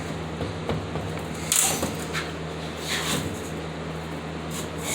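A few light clicks and a brief scrape of the angle grinder stand's metal parts being pushed and adjusted by hand, the scrape about a second and a half in, over a steady low hum.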